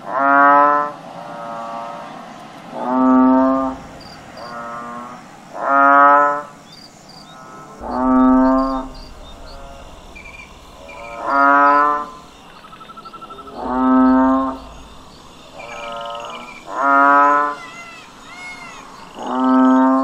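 Bull mooing over and over: about eight loud, drawn-out bellows, each about a second long and coming every two to three seconds, with quieter calls in between. Faint bird chirps sound behind them.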